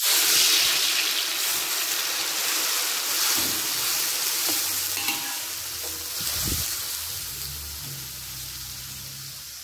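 Blended green chilli, shallot, garlic and dried shrimp paste sizzling in hot oil in a wok, stirred with a metal spatula, being sautéed until fragrant. The sizzle starts suddenly as the paste goes in and slowly dies down, with a few light spatula knocks.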